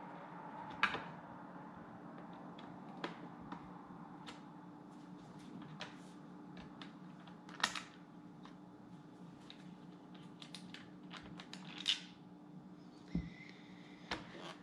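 Scattered light clicks and taps of a screwdriver and plastic casing as the screws holding a Dyson V8 vacuum's battery are taken out, a few clicks louder than the rest, over a faint steady hum.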